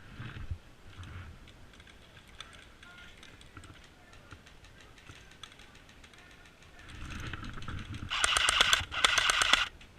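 Airsoft gun firing two rapid full-auto bursts, each just under a second long, about eight seconds in, after several seconds of faint ticks and rustling.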